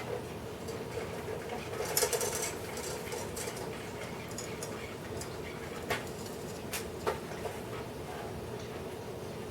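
Light clicks, taps and rustling from small clock parts, the hands, being handled and fitted, with a brief cluster about two seconds in and a few single sharp clicks later, over a steady faint hum.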